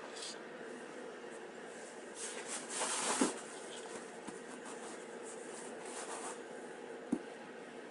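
Drawstring cord sliding through the D-rings of a nylon mukluk and the fabric rustling as hands tighten the laces, with a louder swish about three seconds in and a single small click near the end. A faint steady hum lies underneath.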